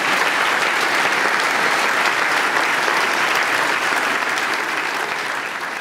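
Audience applauding: a dense, steady clapping of many hands that begins to ease off near the end.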